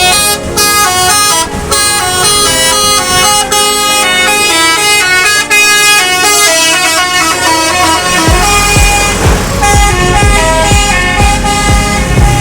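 A bus's telolet basuri horn, a multi-note musical horn, playing a tune of stepped notes. From about eight seconds in a deep, rapid pulsing joins underneath.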